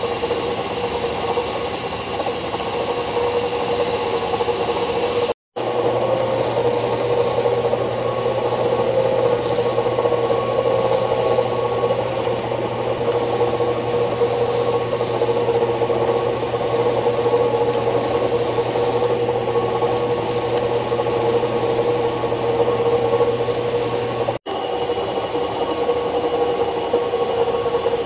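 Metal lathe running, turning and then drilling a small steel part: a steady machine hum and whine with the hiss of cutting. The sound breaks off for an instant twice, about five seconds in and near the end, as the footage cuts; the middle stretch has an added low steady hum.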